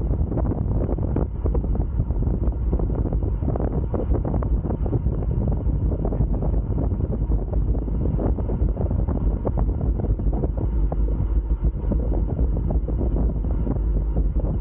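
Heavy wind buffeting on the camera's microphone from riding a road bike at about 46 km/h: a loud, steady, fluttering rumble.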